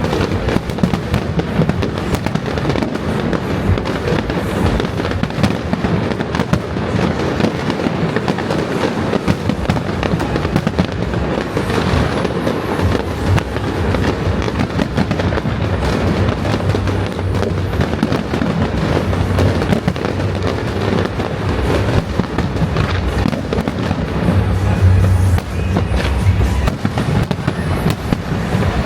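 Fireworks going off in a dense, unbroken barrage: rapid crackling and bangs with no pause, with music underneath.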